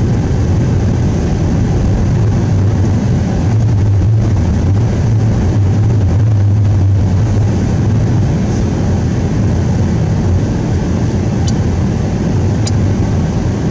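Vehicle engine and road noise droning low and steady inside the cab while driving slowly on snow. The engine note swells for a few seconds in the middle, and there are a couple of faint clicks near the end.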